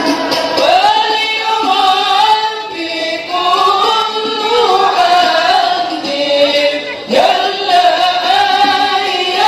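Voices singing a slow devotional sholawat melody together in unison, with long held, wavering notes and new phrases starting about three and seven seconds in.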